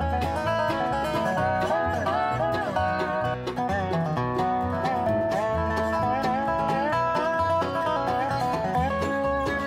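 Background music: upbeat banjo-led bluegrass/country tune with plucked strings and a steady bass beat.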